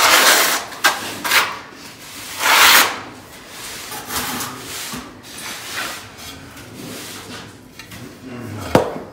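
Notched steel trowel scraping and combing tile mortar across a concrete floor: three loud strokes in the first three seconds, then quieter scraping. A ceramic floor tile is set down into the mortar with a sharp click near the end.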